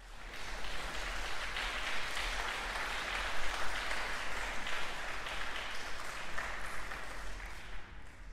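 Audience applauding in a concert hall, the clapping fading away near the end.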